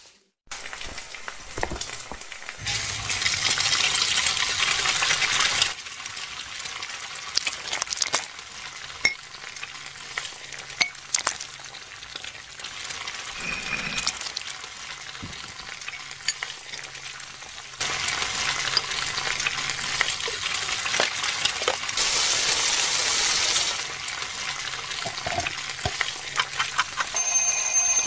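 Kitchen sound effects laid over a stop-motion cooking scene: a steady frying-like hiss that swells louder twice for several seconds each, with many scattered clicks and clinks. A short high beep sounds near the end.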